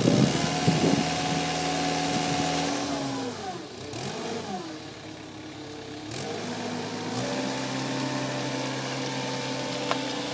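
Cat skid steer loader's engine running hard at working revs. The pitch sags and wavers about three seconds in, then climbs back to a steady high pitch near seven seconds, with a few knocks at the start.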